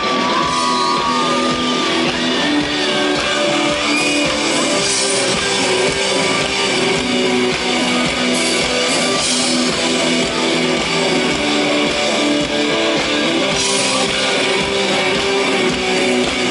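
Live rock band playing loudly through a festival sound system: electric guitar with sustained chords and note bends, with some singing and shouting. It cuts off abruptly at the very end.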